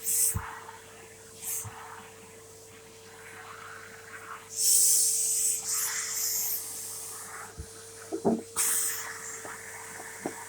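Henry Pets cylinder vacuum cleaner running with a steady motor whine, with bursts of rushing, hissing air as it sucks up debris through the hose, and a few clicks and knocks from the tool.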